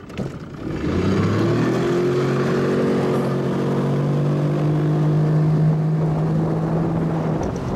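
Yamaha 25 hp outboard motor throttling up about a second in, then running at a steady speed, with its pitch easing off near the end.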